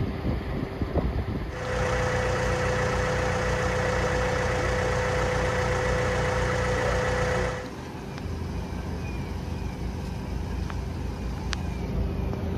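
Vehicle engines idling with a steady hum. The sound changes suddenly about a second and a half in and again about eight seconds in, and is loudest in the six-second stretch between.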